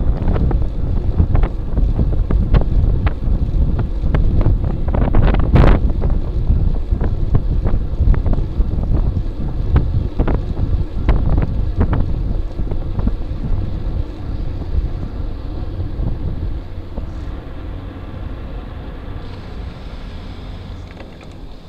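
Wind buffeting the microphone of a bike-mounted Cycliq camera on a moving bicycle, with road rumble and frequent rattling knocks from bumps in the pavement, one sharp knock about five seconds in. The rumble eases off over the last several seconds.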